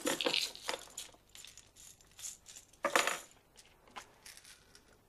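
Hands rummaging through a drawer of medicine boxes and pill bottles: irregular clicks and clattering rattles of small containers, with a louder rattle about three seconds in.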